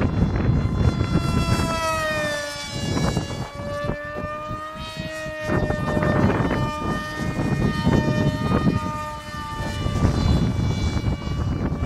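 RC model airplane's motor and propeller whining in flight, a high pitched tone whose pitch drops as the plane passes about two to three seconds in, holds, and climbs again near the end as it comes round. A low rumble runs under it.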